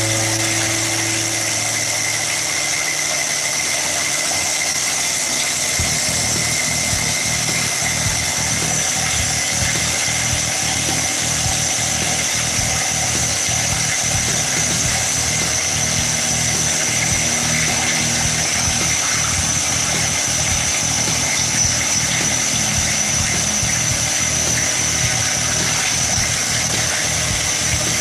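DeWALT DCH273 cordless SDS Plus rotary hammer drilling into cured concrete, its motor whining steadily with a fast, continuous hammering that sets in about six seconds in as the bit bites.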